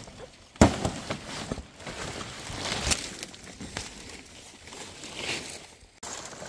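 A knife chopping through a fan-palm leaf stalk with one sharp crack about half a second in, then the large palm leaves rustling and crackling as they are handled, with another sharp snap near three seconds.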